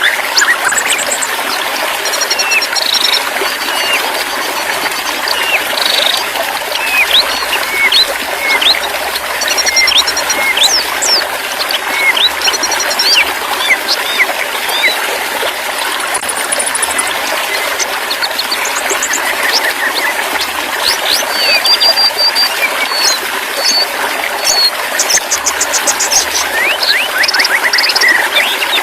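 Running water trickling steadily, with many short, quick bird chirps and whistles scattered over it.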